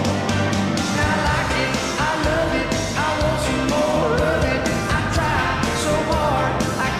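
Hockey goal song: a rock song with a sung vocal over a steady drum beat, playing after the goal horn.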